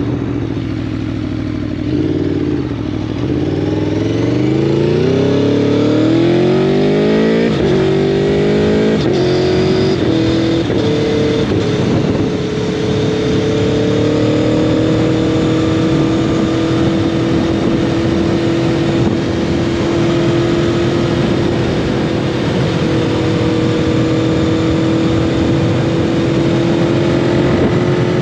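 Aprilia Tuono V4 engine through an SC Project carbon slip-on exhaust, accelerating hard and shifting up through several gears in quick succession, the pitch climbing and dropping at each shift, then settling into a steady cruise about halfway through. A steady rush of wind noise runs underneath.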